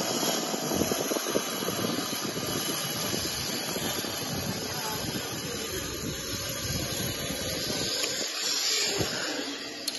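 Zipline trolley running fast along its steel cable: a steady rushing hiss, with wind on the microphone rumbling underneath.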